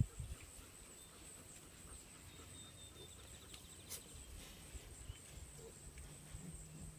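Quiet farm pasture ambience with a brief bird call and a single sharp click about four seconds in. Near the end come faint grunts from Tamworth pigs.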